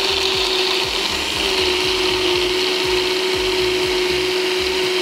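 Quigg personal blender (smoothie maker) with its blade attachment running, blending crushed ice and raspberries: a steady motor whine over the grinding and rattling of the ice, dipping slightly in pitch about a second and a half in.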